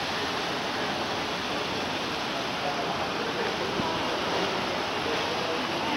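Sutlej River in flood, its swollen, fast-moving water rushing steadily.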